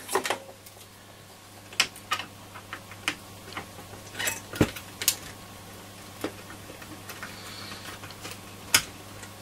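Screwdriver turning out the heat-sink screw in a Roberts R707 transistor radio's metal chassis: irregular light metallic clicks and taps, with a sharper click near the end.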